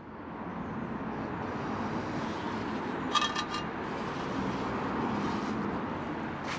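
Steady outdoor background noise with distant traffic. About three seconds in, a steel shovel blade scrapes and briefly rings against sanded block paving.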